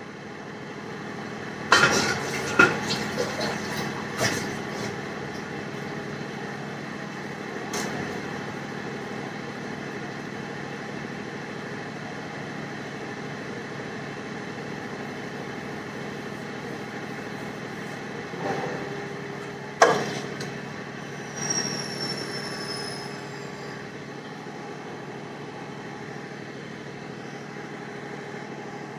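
Steady background hum with scattered sharp knocks and clatter of steel kitchenware, including a loud clank about twenty seconds in as a stainless steel kadai is set down on the stove.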